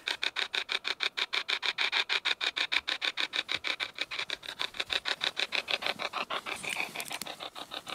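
Ghost box: a hacked radio sweeping rapidly through stations, giving hissy static chopped into short, even pulses many times a second.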